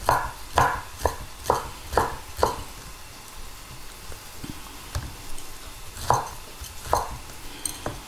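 Kitchen knife chopping through pineapple onto a wooden cutting board: six strokes about two a second, a pause, then two more strokes near the end.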